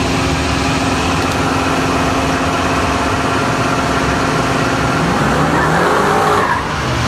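Pickup truck engine held at high revs during a burnout, steady for about five seconds, then rising and falling in pitch, with a short dip near the end.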